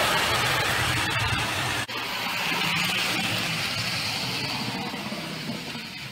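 Toy electric trains running on a layout's metal track: a steady rumbling rattle of wheels and motors, which cuts out for an instant about two seconds in.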